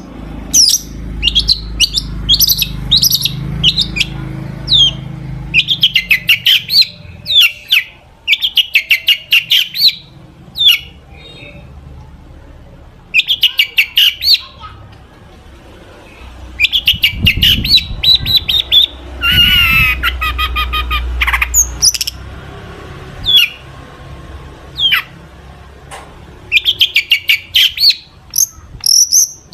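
Long-tailed shrike (cendet) singing a fast, varied song of rapid chattering trills, sharp notes and harsh squawks, packed with mimicked calls of other birds. A harsh, buzzy call stands out about two-thirds of the way through.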